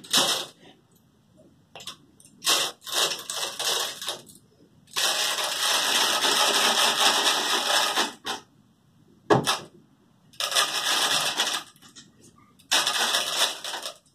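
Rustling and scraping of cloth and screen-printing mesh being handled and pulled taut over a wooden stretching frame. The noise comes in bursts of a second or two, with one steady stretch of about three seconds near the middle and a single sharp knock a little later.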